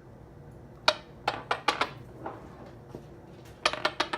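Fidget stick clicking against a countertop as it is pressed down and tipped end over end. There is a single click about a second in, a quick run of four clicks just after, and another run of clicks near the end.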